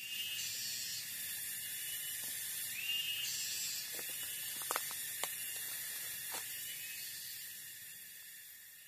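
Forest insects keep up a steady, high-pitched buzzing chorus, with a few short rising calls over it. A few sharp clicks come around the middle, and the sound fades down near the end.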